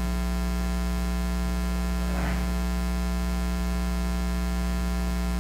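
Steady electrical mains hum, a low buzz with a long ladder of overtones, running at an even level. A faint brief noise comes about two seconds in.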